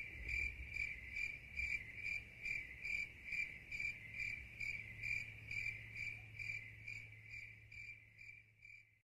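Cricket chirping: evenly spaced high chirps, about two and a half a second, growing fainter near the end.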